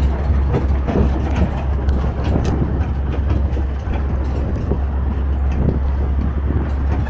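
Riding aboard a sightseeing tourist train: a steady low engine drone with irregular rattles and knocks from the moving carriage.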